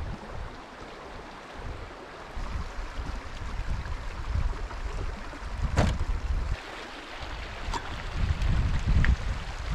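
Wind gusting across the microphone in uneven low rumbling buffets, with a sharp click about six seconds in and a fainter one near eight seconds.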